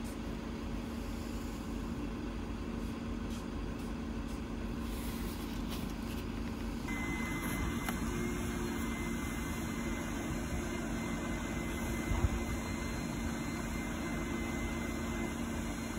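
A steady low mechanical hum with a constant tone, like an idling engine or running machinery, with a single short knock about twelve seconds in.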